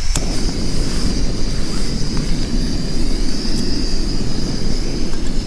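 Fire Maple remote-canister gas stove lit with a click near the start, then the burner running with a steady roar and a high, even hiss of gas.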